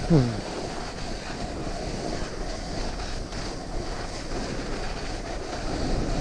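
Snowboard sliding down a packed, icy snow-covered road: a steady hiss of the board running over the snow, with wind buffeting the microphone. A short falling tone sounds right at the start.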